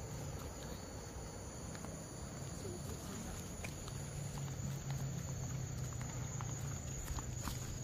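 Insects shrilling steadily as a thin, high, continuous drone, with a low steady rumble underneath and a few faint ticks.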